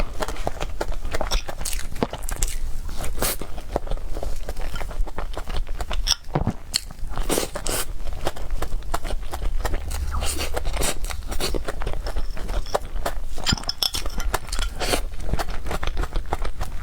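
A person chewing and biting food close to the microphone, mukbang-style: irregular crunches and mouth clicks, several a second.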